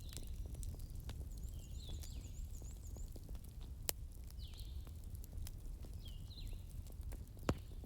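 Crackling fire: a steady low rumble with fine crackles and two sharp pops, about four seconds in and near the end. Small birds chirp repeatedly over it in short high calls.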